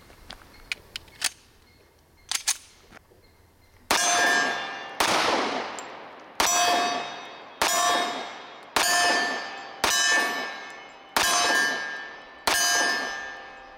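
Magnum Research Desert Eagle 1911 Commander pistol fired eight times at a slow, steady pace of about one shot a second, starting about four seconds in, each shot leaving a ringing tail. A few faint clicks come before the first shot.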